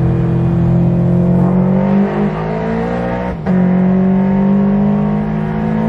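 Edelbrock-supercharged Scion FR-S's 2.0-litre flat-four engine under acceleration, heard from inside the cabin: the engine note climbs steadily, dips sharply about three and a half seconds in as the automatic gearbox shifts up, then climbs again.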